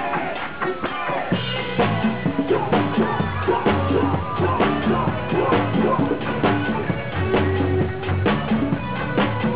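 Live rock band playing with a full drum kit, heard from on stage behind the drummer. The low end and a steady drum beat come in about a second in.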